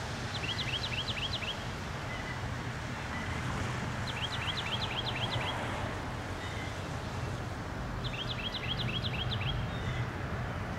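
A songbird sings the same short, quick phrase of rapid notes three times, about four seconds apart, over steady outdoor background noise with a low hum.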